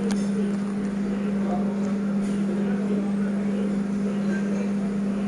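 A steady low hum at one constant pitch.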